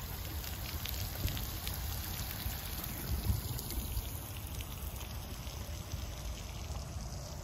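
Small outdoor fountain splashing and trickling steadily onto a stone basin, over a low rumble of wind on the microphone.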